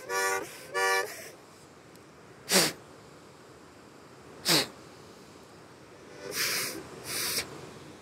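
Harmonica playing two short chords in the first second, then four short breathy puffs with no clear note, the last two longer and about half a second apart.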